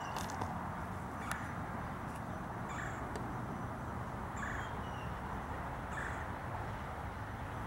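A bird calling three times, short harsh calls about a second and a half apart, over steady background noise.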